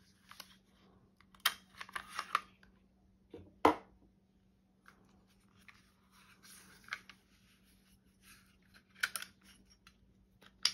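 Hi-Point C9 pistol being handled: a few sharp clicks and knocks, the loudest a little under four seconds in, among soft rustling handling noise.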